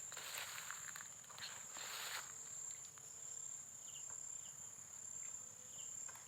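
Insects keeping up a steady high-pitched drone, with a few faint chirps over it. There are several brief soft scuffing noises in the first two seconds.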